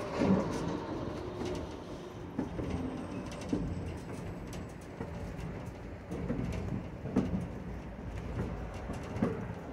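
Passenger railroad car rolling along the track: a steady low rumble of the wheels, broken by irregular knocks and clunks from the running gear.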